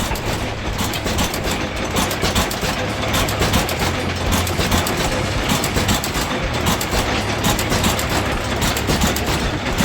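Antique machinery running: a steady, dense mechanical clatter over a low hum.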